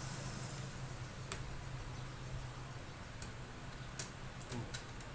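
Scattered small sharp clicks of laptop parts being handled, the loudest about a second in and several more close together near the end, over a steady low hum.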